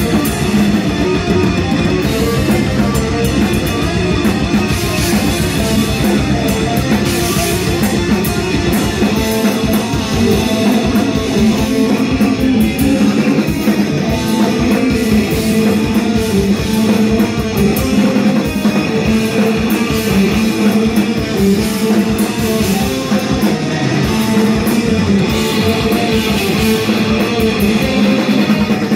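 Heavy metal band playing live: distorted electric guitars over bass and drum kit, loud and continuous.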